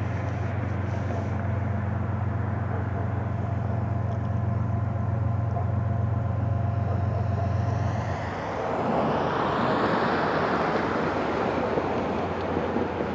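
Distant GE ES44C4 diesel locomotives of an approaching freight train running with a steady low drone. About eight seconds in, a rushing noise from something passing closer swells and fades out.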